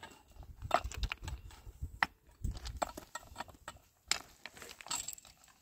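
An iron bar and a pick striking stony ground, with stones knocking together: an irregular run of sharp knocks and clinks.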